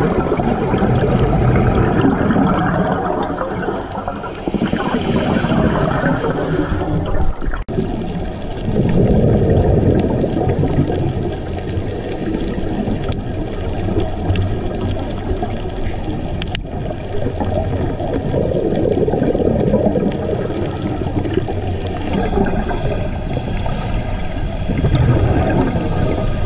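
Scuba regulator breathing heard underwater: a hissing inhale followed by exhaled bubbles gurgling and rumbling, in slow cycles several seconds apart.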